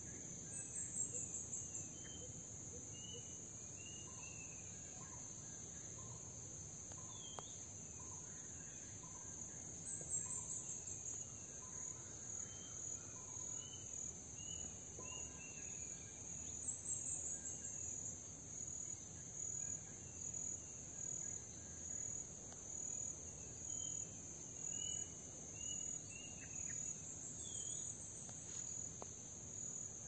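Forest insects keeping up a constant high trill, which pulses about once a second through the second half, while birds call over it with short whistled notes and chirps and a run of evenly spaced lower notes in the first half.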